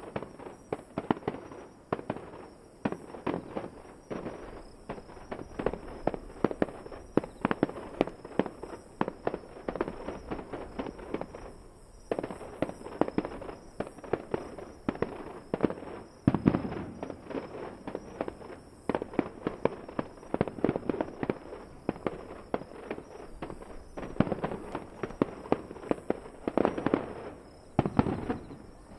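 Fireworks display: a rapid, continuous barrage of shell bursts and crackling reports, with heavier booms about halfway through and again near the end, where the barrage stops.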